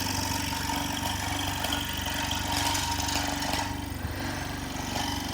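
Electric scroll saw running steadily as its blade cuts a wooden coaster, a fast, even mechanical buzz.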